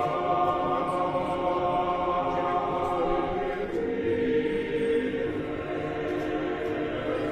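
Mixed choir of men and women singing unaccompanied Orthodox liturgical chant in long, held chords.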